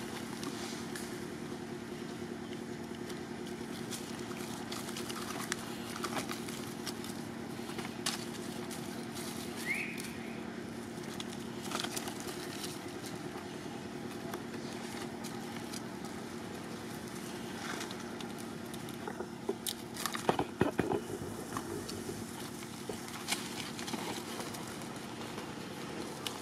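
Dry palm fibre and leaf litter crackling and rustling as baby macaques move and scramble over it, in scattered clicks with a louder flurry about twenty seconds in, over a steady low hum.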